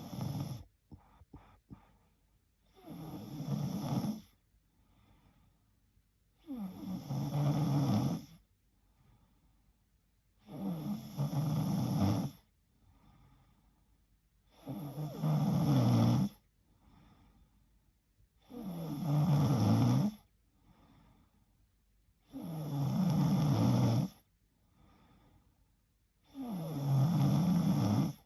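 A woman snoring in her sleep: seven long, even snores about four seconds apart, each lasting a second and a half to two seconds. A few faint clicks come about a second in.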